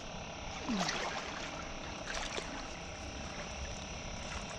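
Steady outdoor background hiss on the water with faint water lapping, and a few faint, brief calls, one falling in pitch about a second in.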